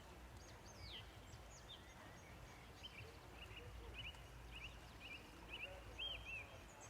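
Small birds singing faintly: a falling whistle about a second in, then a quick run of short, repeated chirps, over a low steady background rumble.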